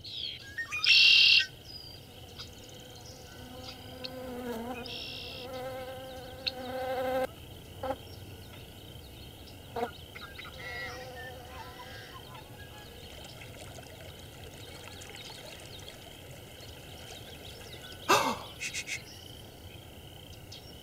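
Meadow nature ambience: a steady faint insect drone, with an insect buzzing for about four seconds early on, a few short chirps and clicks, and a short falling call near the end.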